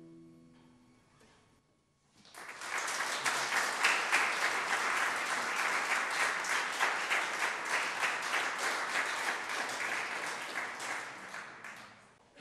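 A classical guitar's last chord dies away, then after a short pause an audience applauds steadily for about ten seconds, thinning out near the end.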